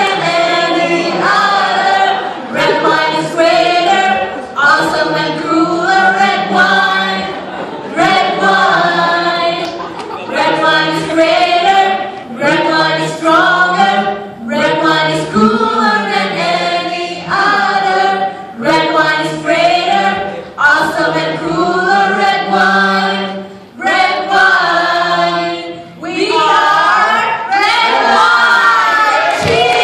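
A group of mixed voices singing together unaccompanied, a cappella, in short sung phrases.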